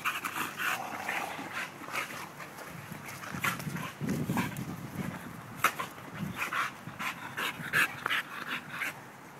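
Pit bulls play-wrestling, breathing hard in quick, irregular bursts, with a few sharp clicks and scuffles between them.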